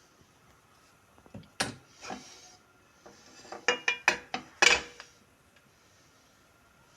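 Metal spoon knocking and clinking against a frying pan: two knocks, then a quick run of about six ringing clinks between about three and a half and five seconds in.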